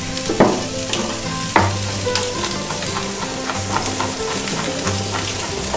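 Knife chopping fresh herbs on a wooden cutting board: two sharp chops about half a second and a second and a half in, then a run of lighter taps. Under them are a steady hiss and soft background music.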